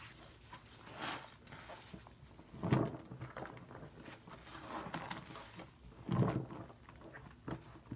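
A sponge squeezed and kneaded by hand in a bowl of thick shaving-cream foam: irregular wet squelches and crackling foam, loudest about three seconds in and again about six seconds in.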